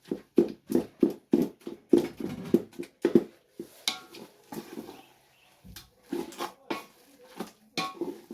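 Cooked cowpea greens being pounded to soften them, a run of dull thuds about three a second that breaks off after about three seconds into a few scattered strokes.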